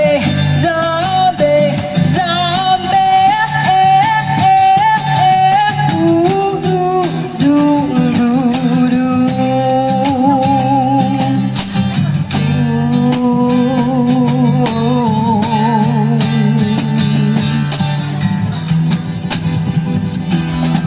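Singing with long held, wavering notes over a strummed guitar accompaniment.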